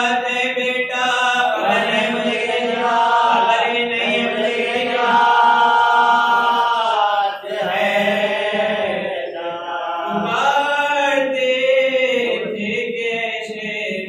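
A man chanting a devotional majlis recitation into a microphone, his voice held in long melodic lines that glide up and down, with a short break about halfway through.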